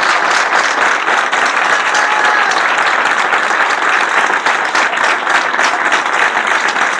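Crowd applauding, a steady dense clatter of many hands clapping.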